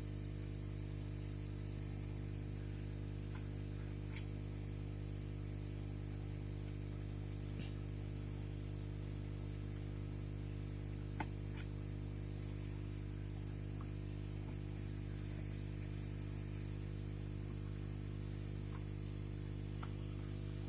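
Steady electrical hum with a background hiss, and one faint click about 11 seconds in.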